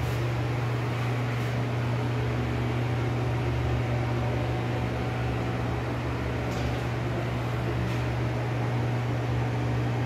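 Ceiling exhaust fan running with a steady low hum.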